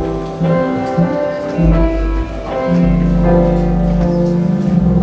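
Church organ playing slow, sustained chords over held deep bass pedal notes, settling into one long held chord near the end.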